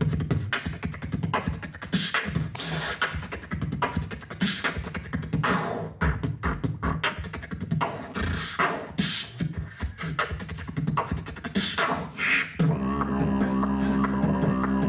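Beatboxing into a cupped handheld microphone: a quick, dense beat of percussive mouth clicks and low thumps. About thirteen seconds in, the beat gives way to a steady low droning hum with light ticks over it.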